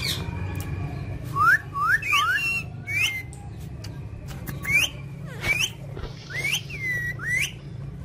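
Ring-necked parakeets giving short shrill calls that sweep upward in pitch, several in quick succession, starting about a second in and repeating on and off, over a steady low hum.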